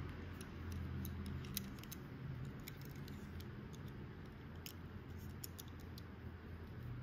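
Scattered light clicks and taps from fingers handling a small die-cast Tomica Premium Lamborghini Diablo SV model car as it is turned in the hand, over a low steady hum.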